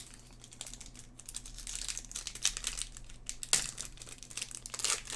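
Foil wrapper of a Topps Chrome Champions League trading-card pack crinkling and tearing as it is pulled open by hand. The crackle builds from about a second in, with the loudest crackles late on.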